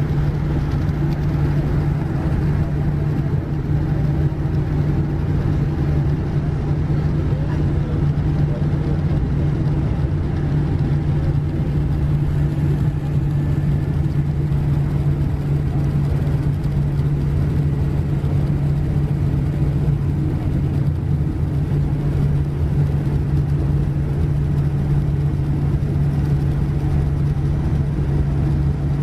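Boeing 787-9 cabin noise while taxiing: a steady low hum from the Rolls-Royce Trent 1000 engines at idle over an even rumble.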